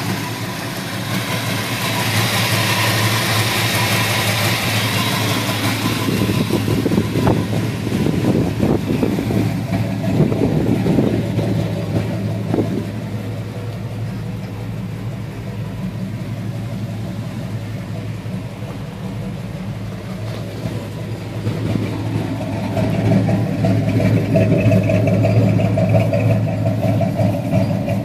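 1972 Ford F-100's 390 big-block V8 idling steadily, getting louder near the end as the tailpipes are reached.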